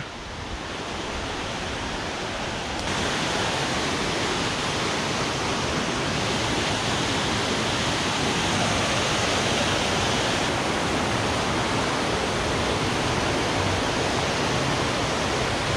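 Steady rush of fast-flowing river water near a waterfall, the Folly River running high after hurricane rain; it grows louder about three seconds in.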